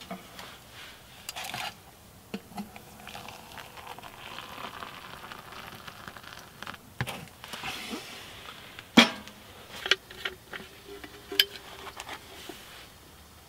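Hot water poured from an aluminium camping kettle into a metal mug of hot chocolate, a soft splashing hiss lasting several seconds, amid small metallic clinks and knocks; the loudest is a single sharp knock shortly after the pouring stops.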